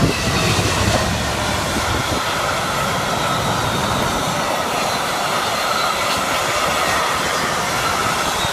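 EWS Class 66 diesel locomotive 66056 hauling a freight train through the station: the locomotive's engine is heavier in the first couple of seconds, then a steady, continuous rush of the freight wagons rolling over the rails.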